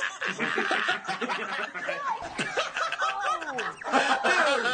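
A group of men laughing together, several voices snickering and chuckling over one another, with some laughs falling in pitch partway through.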